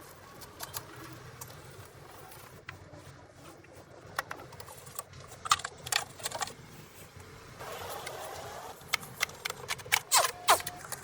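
Scattered sharp clicks and taps, a few with a brief ringing tone that falls in pitch, and a short steady hiss about eight seconds in.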